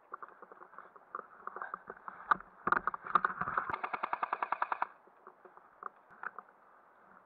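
Airsoft rifle firing: a few single shots, then a rapid full-auto burst of about ten shots a second lasting roughly two seconds.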